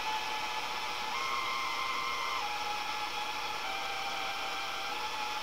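Tabletop radio playing a steady hiss of static, with faint high whistling tones that hold and then step to a new pitch a few times.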